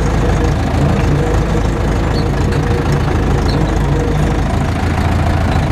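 Farm tractor's diesel engine running steadily at low revs, heard from the driver's seat while the tractor reverses.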